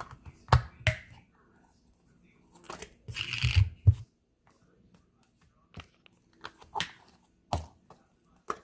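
Slime being squeezed and stretched by hand: short sticky clicks and pops, with a longer run of squishing from about three to four seconds in, then scattered single pops.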